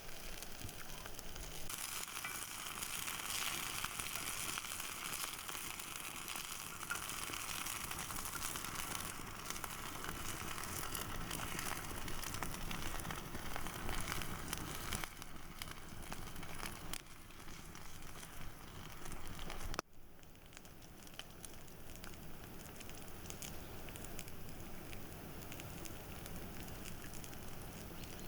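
Mushrooms frying in vegetable oil in a pan over a campfire: a steady sizzle that grows louder about two seconds in. It cuts off abruptly about two-thirds of the way through, and a quieter sizzle with small crackles follows.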